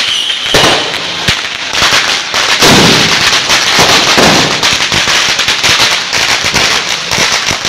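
Firecrackers going off on the ground in a rapid, continuous crackle of many small bangs, with louder surges every second or two.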